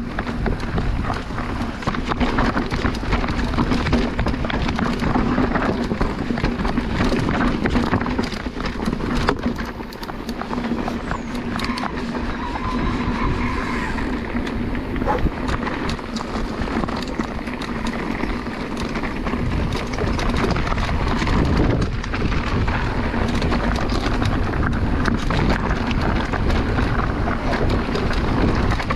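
Mountain bike riding over a rough, rocky trail: tyres rolling and crunching over stones, small knocks and rattles from the bike, and wind buffeting the microphone, under a faint steady low hum.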